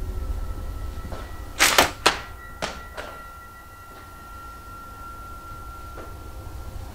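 A few sharp knocks, the loudest two close together about two seconds in, then a lighter one, over a faint steady high tone and a low rumble.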